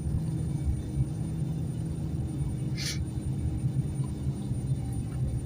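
Vehicle cabin noise while driving: a steady low engine-and-road rumble with a faint low hum, and a brief hiss about three seconds in.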